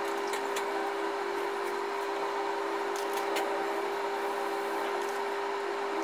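Long-reach demolition excavator running, its engine and hydraulics giving a steady, even whine. A few faint clicks of breaking debris come through, one each at about the third second, near the end of the first second and near the start of the fourth second.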